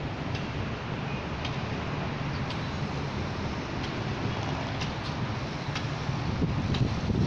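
Steady low hum of distant city traffic, with a few faint clicks.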